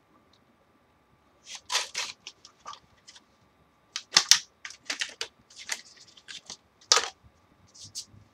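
Plastic clicks and scrapes from a motherboard's memory-slot latches being flicked open and a Kingston RAM stick being handled and pressed into its slot. The clicks start about a second and a half in and are sharpest about four seconds in and again near seven seconds.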